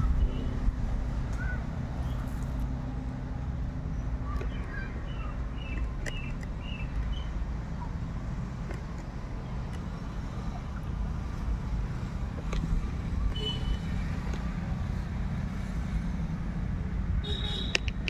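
A steady low engine hum, as of a vehicle running, with a few short high chirps over it: a cluster about a quarter of the way in and single ones later.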